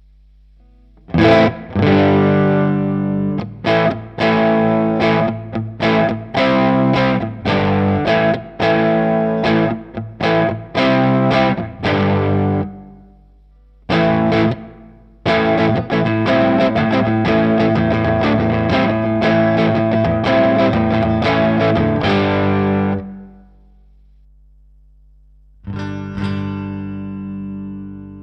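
Electric guitar (Fender Stratocaster) played through a Line 6 Helix amp-and-cab model. First come a series of short, rhythmic chord stabs, then a longer continuous passage, and near the end a single chord left ringing out.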